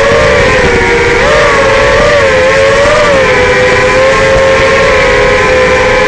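Racerstar BR2205 2600KV brushless motors spinning Dalprop Cyclone three-blade propellers on an FPV racing quadcopter in flight: a loud, steady whine from several motors at slightly different pitches. The pitch rises and dips with the throttle a few times in the first three seconds, then holds steady.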